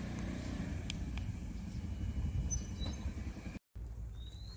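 Steady low outdoor background rumble, with a few short high chirps and a brief rising chirp near the end; the sound drops out for an instant about three and a half seconds in.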